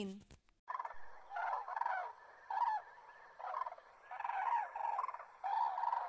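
Crane calls: a series of about seven calls, each under a second long, separated by short gaps and beginning about a second in, over a steady recording hiss.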